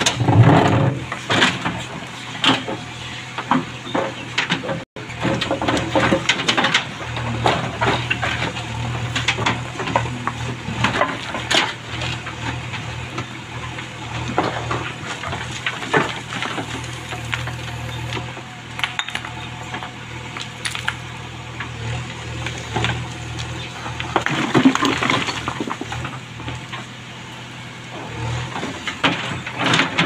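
JCB 3DX backhoe loader digging through wet, rocky ground: its diesel engine runs with a steady low hum while the backhoe bucket scrapes and knocks against stones in a rapid, irregular string of clanks.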